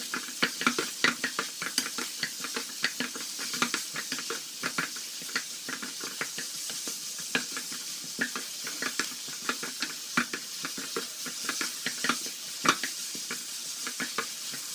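Minced beef, onions and bell peppers sizzling in hot oil in a stone-coated nonstick wok, while a wooden spatula stirs and scrapes against the pan in quick, irregular strokes.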